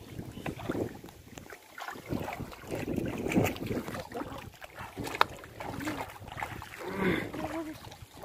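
Feet wading through shallow water and wet grass, with irregular sloshes and swishes and a few sharp clicks, while wind buffets the microphone.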